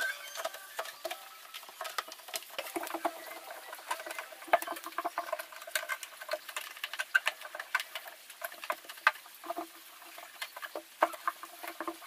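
Wet cloth wiping and rubbing the plastic liner inside a refrigerator: irregular light taps and patter mixed with short squeaks, continuing throughout.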